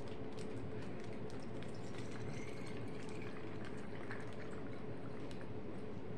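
Water pouring from a glass measuring cup through a plastic funnel into a squeeze bottle, a steady trickle filling the bottle.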